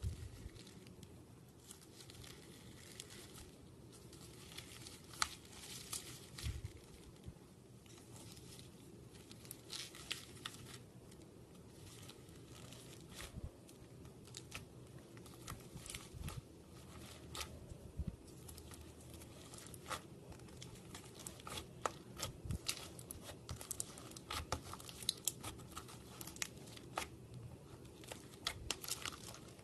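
Faint, scattered crackles and clicks, coming more often toward the end, from hands working slime or its ingredients.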